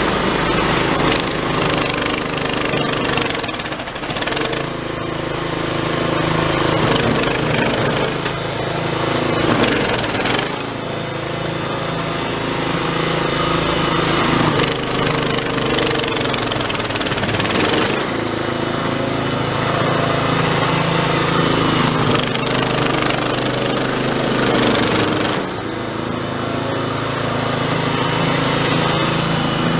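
Toro Snowmaster 724 QXE snowblower running under load, its small single-cylinder engine and auger chewing through heavy, refrozen snow and throwing it. The engine note shifts and dips several times as the load changes.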